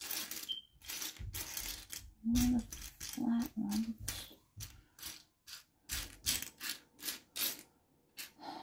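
Small plastic building bricks clicking and clattering against each other as a hand rakes and sifts through a loose pile of them on a mat, in quick irregular clicks.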